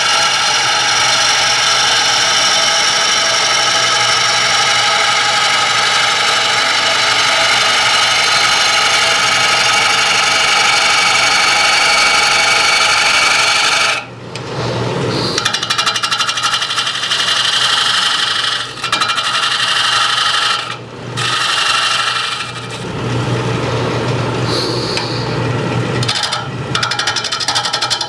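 Turning gouge cutting a spinning green red oak bowl blank on a wood lathe: a loud, steady chatter of the tool against the still out-of-round blank. The cut breaks off about halfway through and a few more times near the end as the gouge comes off the wood between passes.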